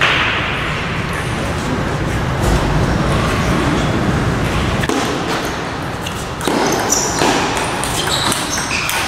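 Table tennis ball clicking sharply against the table and bats, over steady background noise, with the clicks coming more often in the last few seconds.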